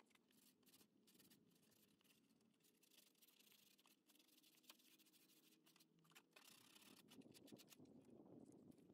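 Near silence, with faint scratching strokes of sandpaper rubbed by hand over a plastic bumper cover, growing a little stronger about six seconds in.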